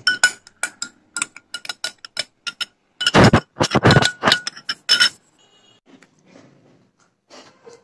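A metal spoon stirring coffee in a glass tumbler, clinking quickly against the sides so the glass rings with each strike. The strikes come harder and louder around three to four seconds in, then stop at about five seconds.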